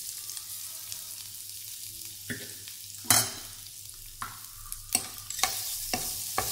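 Chopped onion and peanuts frying in hot oil in a steel pot, a steady high sizzle. From about two seconds in, a metal spoon stirring the mix clinks against the pot several times, the loudest clink around three seconds in.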